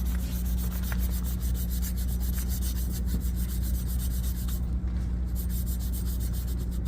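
Quick, even rubbing or scraping strokes, as of work on the copper pipe, over a steady low hum.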